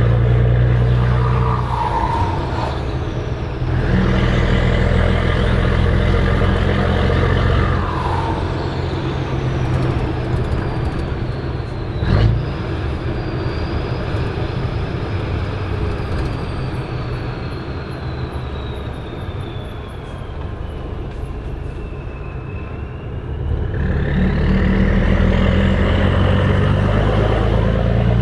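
Volvo FH16 520's 16-litre straight-six diesel with an open exhaust pipe, heard from inside the cab: it pulls hard, then eases off and runs quieter through the middle while the turbo whistle slowly falls in pitch, and pulls hard again near the end as the whistle rises. There is a single sharp sound about twelve seconds in.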